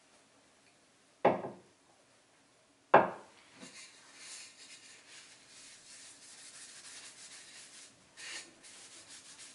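Two sharp knocks about two seconds apart, then a cloth rubbing a beeswax-and-oil finish over a wooden spoon holder with a faint, steady scrubbing.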